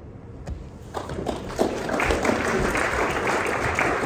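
Audience applauding: a few scattered claps that build into full, steady applause about halfway through.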